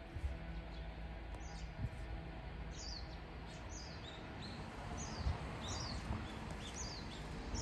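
Birds chirping: many short, high notes that drop quickly in pitch, coming more often from about three seconds in. A steady low background hum runs underneath.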